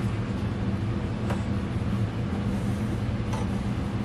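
A steady low machine hum, like a motor running, with a couple of faint light knocks about a second in and near the end.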